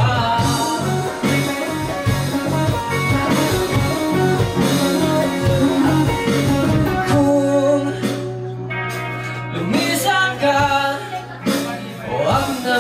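Live rock band playing a song: singing over electric guitars, bass guitar and a drum kit.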